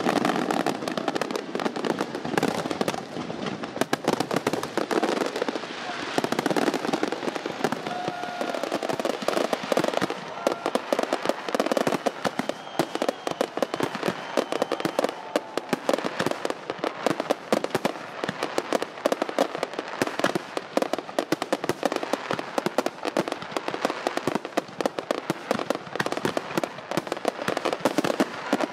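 Fireworks going off without a break: a dense, continuous crackle of many pops and bangs.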